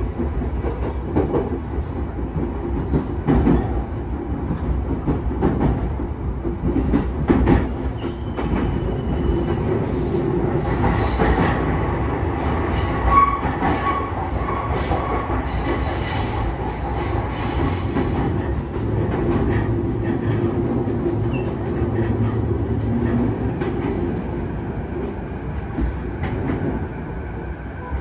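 JR East E233-0 series electric train running, heard from inside the car, its wheels clicking over the joints of unwelded jointed rail. From about ten seconds in to about eighteen seconds in, a high wheel squeal rings over the running rumble.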